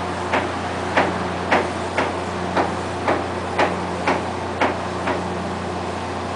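A bottom trawler's engine running with a steady low hum, with a regular sharp knocking, about two knocks a second, that stops about five seconds in.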